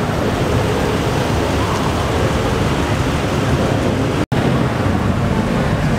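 Cars rolling slowly past one after another, a steady engine and exhaust rumble mixed with a noisy wash. The sound cuts out for an instant about four seconds in.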